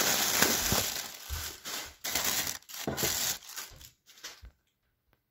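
Plastic air-pillow packing being handled and pushed aside by hand, crinkling and rustling in bursts that die away a little over four seconds in.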